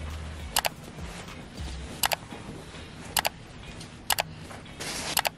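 Camera shutter clicks: five quick double clicks about a second apart.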